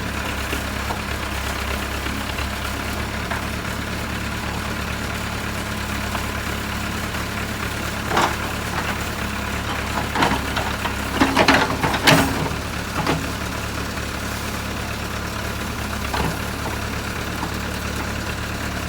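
JCB 3CX backhoe loader's diesel engine running steadily at low revs. A few sharp knocks come about halfway through, one on its own and then a quick cluster.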